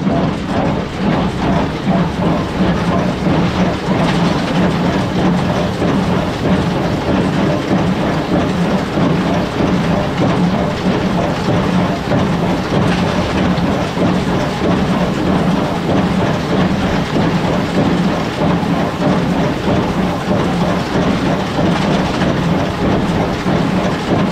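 Tractor engine running steadily under load while pulling a small square hay baler, with the baler's continuous mechanical clatter over it.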